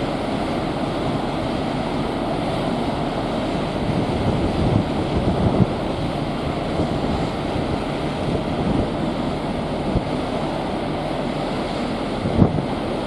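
Steady wind rushing against the microphone on the open deck of a moving cruise ship, with a few louder gusts about five seconds in and again near the end.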